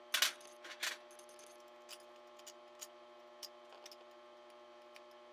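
A few sharp clicks and light taps, the two loudest in the first second, over a steady electrical hum.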